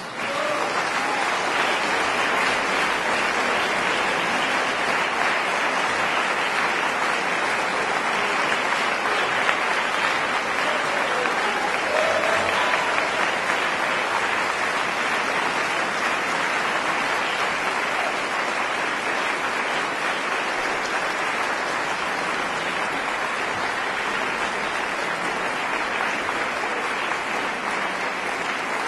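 Concert audience applauding, breaking out the moment the final note of the piece dies away and continuing at an even level.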